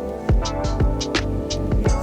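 Background music with a steady beat: a kick drum about twice a second under sustained synth chords, with hi-hat or snare hits above.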